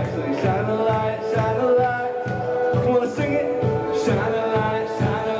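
A live worship band plays a song with a steady drum beat, electric guitar and held keyboard or guitar notes, with voices singing over it.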